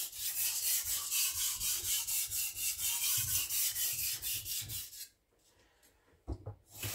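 Victorinox Chinese cleaver's edge stroked back and forth on a diamond sharpening plate, an even rasping scrape at about four strokes a second. The strokes stop about five seconds in, followed by a couple of short knocks near the end.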